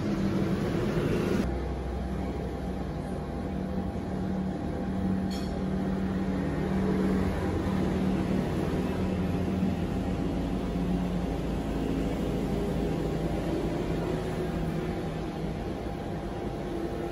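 A steady low machine hum with a constant drone.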